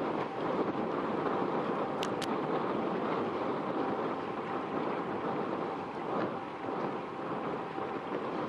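Steady rushing noise of the container ship CMA CGM Margrit passing close by, its wash on the water and machinery hum mixed with wind on the microphone, with a faint steady tone under it.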